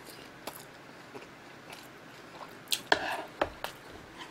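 Close-miked chewing of a mouthful of food, with wet mouth clicks and smacks. A louder cluster of smacks comes about three seconds in.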